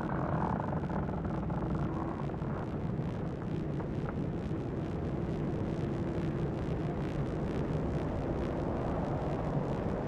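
Steady low rumbling drone of ambient sound design, with faint held tones above it.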